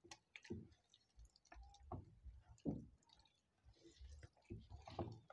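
Faint, irregular wet squelching of a bare hand mixing and kneading thick gram-flour (besan) batter in a bowl.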